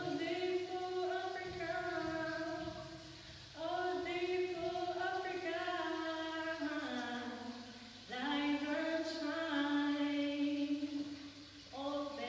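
Unaccompanied singing in a higher voice: four long, slow phrases of held notes with short breaks between them.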